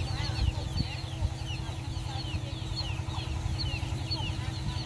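Chickens peeping: many quick, high chirps that fall in pitch, one after another, over a low steady rumble.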